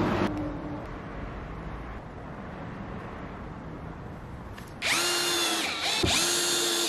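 Cordless drill driving screws through sealant into a roof vent flange: its motor whines at a steady pitch in two runs of about a second each, starting about five seconds in, with a short dip between them. Before that there is only a faint steady hiss.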